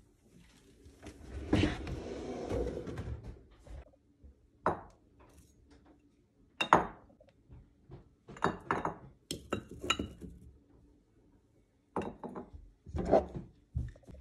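A kitchen drawer sliding open for about two seconds, then glass jars with metal lids clinking and knocking as they are moved about in the drawer, in short clusters of sharp knocks.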